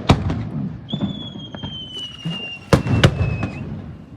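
Fireworks display: sharp bangs of shells bursting, the loudest pair about three seconds in. A long whistle runs through the middle for about two and a half seconds, sliding slightly down in pitch.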